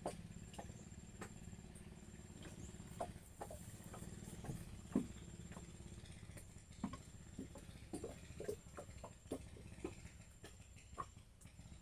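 A faint, steady low hum like a distant motor, with scattered light clicks and knocks and a few brief chirps over it.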